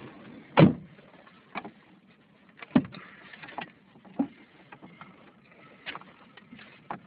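Scattered, irregular knocks and taps over a faint hiss, about one a second, the loudest just under a second in.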